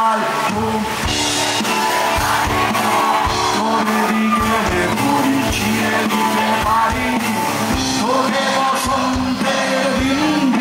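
Live rock band playing through a PA: a male lead vocalist singing over drums and guitar, with a steady drum beat.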